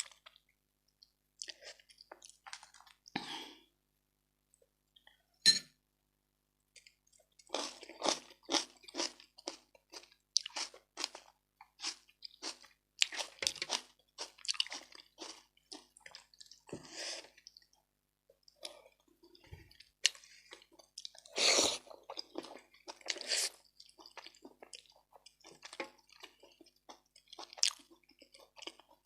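Close-miked chewing and wet mouth sounds of a person eating a meal of rice and fish head soup, in short irregular bursts with brief pauses. There is a sharp click about five seconds in and a louder burst a little past the twenty-second mark.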